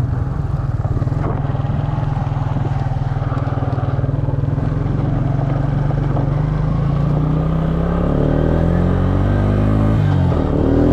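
Quad (ATV) engine running steadily, then from about eight seconds in revving up with rising pitch, dropping sharply near the end and climbing again, as it is run through the gears.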